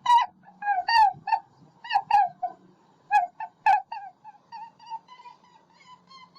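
A recorded rabbit sound played back: a string of short, high squeaks, several a second, turning into fainter, quicker chirps after about four seconds.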